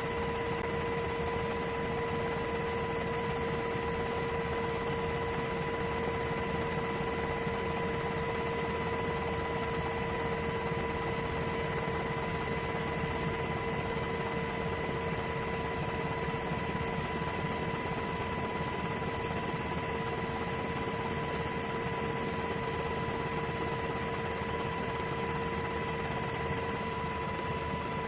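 Steady machinery noise with a constant high whine over it, unchanging throughout.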